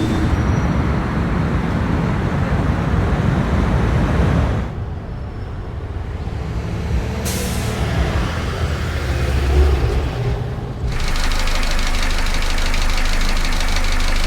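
Excerpts of vehicle field recordings cut one after another: a low engine rumble that changes abruptly about a third of the way in, again about halfway with a brief hiss, and once more near the three-quarter mark to a steadier, brighter drone.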